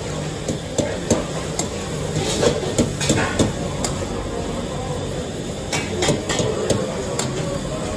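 A slotted metal spoon scraping and clinking irregularly against a steel karahi wok as chicken karahi is stirred, over a steady sizzle and the noise of the gas burner.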